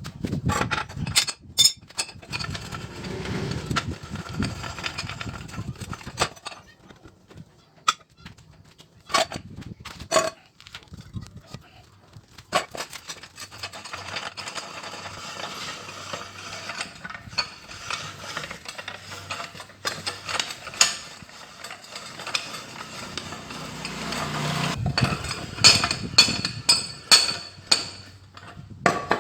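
Metal parts of a homemade steel drill press vise being handled: sharp metallic clinks and knocks, with two long stretches of steady scraping noise between them.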